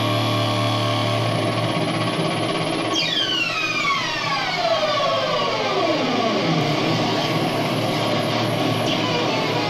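Homemade dub-siren-style dual oscillator: a steady electronic drone, then about three seconds in a long falling siren sweep, several tones dropping together from very high to low over about three and a half seconds.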